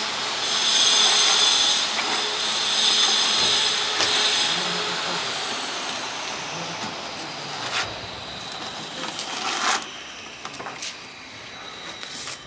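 Electric drill with a paddle mixer stirring wall putty in a plastic bucket, running with a high whine in a few short bursts, then stopping about five seconds in. A few knocks follow later.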